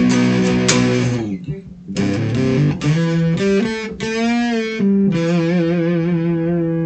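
Electric guitar, a Telecaster on its bridge pickup, played through a Sonicake Fazy Cream fuzz pedal with the level, tone and fuzz knobs at noon. Several chords are picked and held, with a bent note carrying wide vibrato about four seconds in, ending on a sustained chord.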